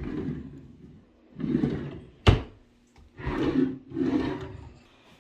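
Wooden bathroom vanity drawers being slid open and shut several times, a rough scraping slide each time, with one sharp wooden knock a little over two seconds in.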